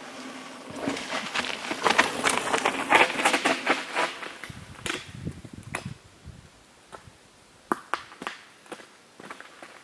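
Mountain bike tyres rolling and scrabbling down a rock slab and gritty dirt, a dense run of crunching with many sharp clicks and rattles that peaks a couple of seconds in, then dies away, with a low rumble. A few separate sharp clicks follow near the end.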